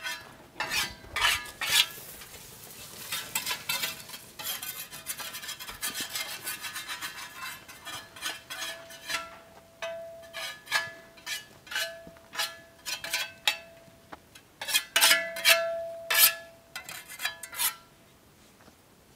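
Irregular metal clinks and clanks, many of them leaving a short ring at one pitch. They come thickly in the first few seconds, and a louder group comes about fifteen seconds in.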